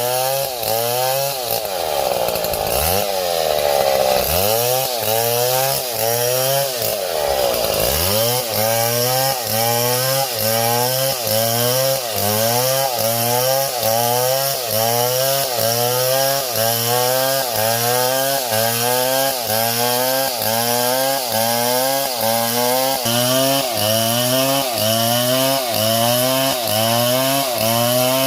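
Small chainsaw running and cutting wood. Its engine pitch rises and falls in a steady repeating cycle, a little faster than once a second.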